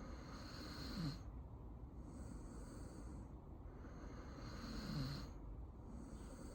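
Taiwan mountain dog mix snoring in its sleep: two slow snoring breaths about four seconds apart, each building to a short low rasp.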